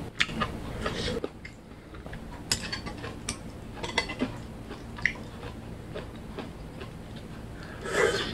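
Stainless-steel chopsticks clicking and tapping against a plate while picking up slices of tomato jeon, a scattered series of sharp clicks. Near the end, louder, denser chewing of a bite begins.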